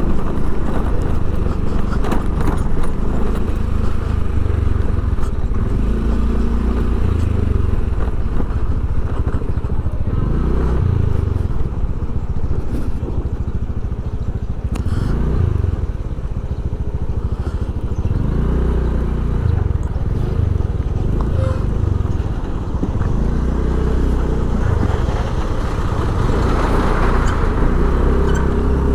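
A vehicle engine, heard close, repeatedly revving up and easing off, over steady road and wind noise.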